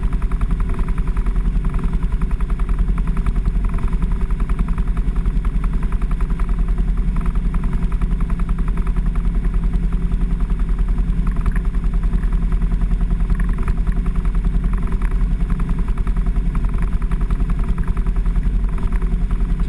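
A vehicle engine running steadily with an even, rapid beat, holding the same pace without revving up or down.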